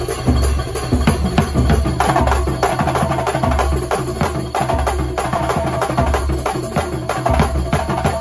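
Kuntulan music: dense, fast hand-drum and percussion strikes over a heavy, pulsing bass.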